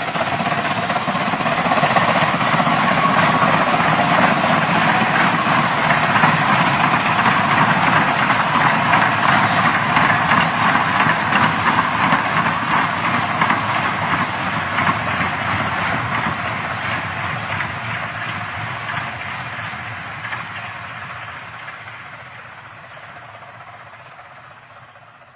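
Steam locomotive running, a dense hissing, rushing train sound that builds up over the first couple of seconds and slowly fades away over the last several seconds.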